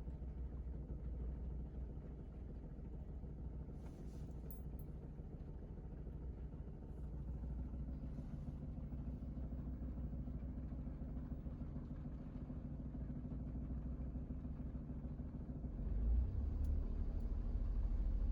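Suzuki Every kei van's 660 cc three-cylinder engine idling steadily; about sixteen seconds in the sound gets louder and heavier in the low end.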